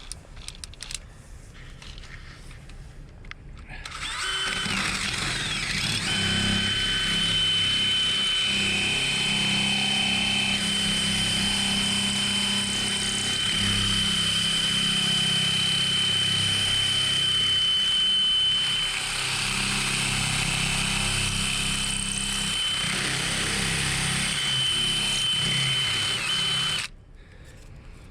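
Electric drill with a larger bit boring into a lock to drill it out. It starts about four seconds in and runs steadily for over twenty seconds with a high-pitched whine over the motor's hum, then stops suddenly near the end.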